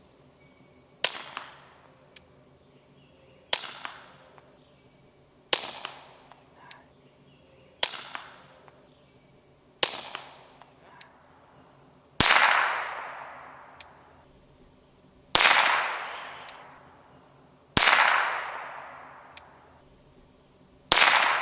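Nine single shots from a suppressed Volquartsen Scorpion .22LR pistol firing CCI Standard ammunition, spaced about two to three seconds apart, with the suppressor switched from a Bowers USS-22 to a Rugged Oculus22. The first five shots are short, quiet pops. The last four have a louder report that rings on for over a second.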